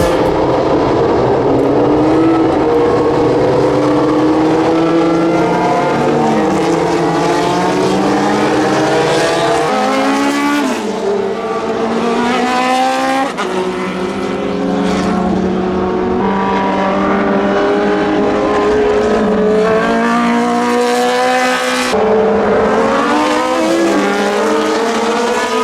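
Historic racing cars' engines at high revs on a circuit, their pitch climbing and falling as the cars pass. The sound changes abruptly about ten seconds in and again about twelve seconds later.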